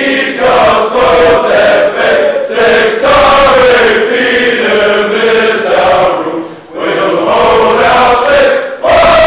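A choir of teenage boys singing together, with brief breaks between phrases about two-thirds of the way through and again near the end.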